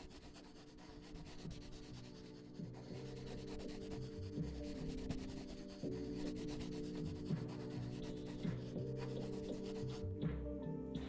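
Quiet ambient music: sustained low chords that shift every second or two under a scratchy, crackling noise texture, slowly growing louder. The crackle drops away shortly before the end.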